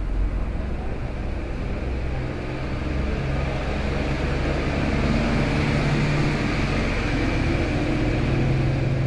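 Steady low mechanical hum and rumble with no distinct strokes, its low drone growing a little stronger about halfway through.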